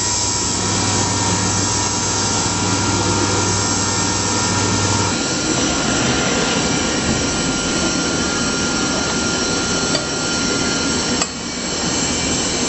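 CNC saw-blade grinding machine running, its grinding wheel working the teeth of an HSS circular saw blade: a steady grinding noise with a thin whine over it. About five seconds in, a low hum drops out and the sound shifts; the whine stops with a brief click near the end.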